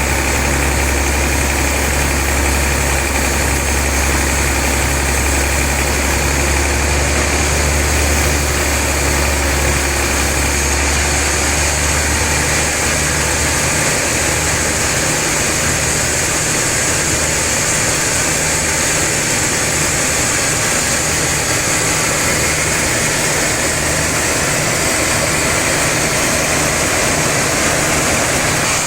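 Sawmill machinery running steadily. A deep hum underneath drops away about halfway through.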